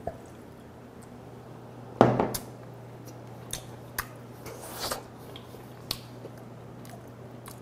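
Clicks and light clatter of chopsticks and tableware during eating, with one louder knock about two seconds in and a few scattered sharp clicks after it.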